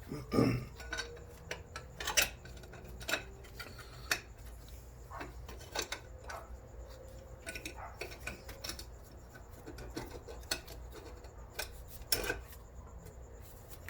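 Irregular sharp metal clicks and light scraping as a snap ring is worked into the groove of a GM 4L60E transmission's forward clutch drum, over the clutch pack's pressure plate.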